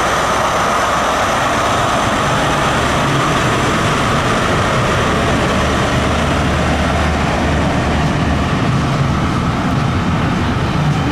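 Diesel locomotive passing close by: a loud, steady engine drone together with wheel and rail noise.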